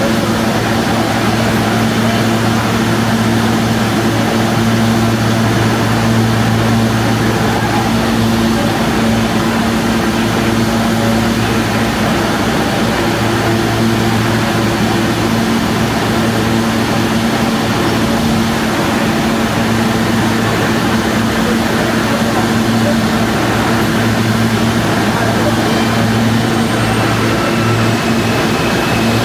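An R160 subway car standing in the station with its doors open, giving off a loud, steady hum from its onboard equipment: a low drone with a higher tone over it, the low drone briefly dipping now and then.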